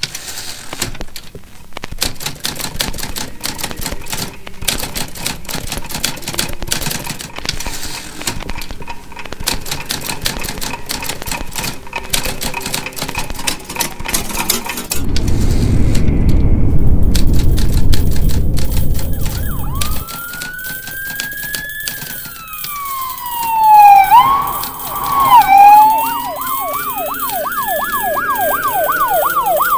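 Typewriter keys clacking rapidly for about fifteen seconds, then a loud low rumble for about five seconds. An emergency siren follows, wailing slowly up and down, and switches near the end to a fast yelp.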